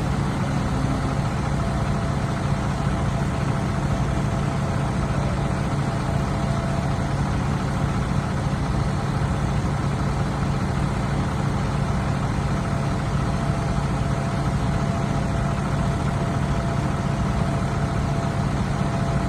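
Heavy engine idling steadily, an even low hum that does not change in pitch or level.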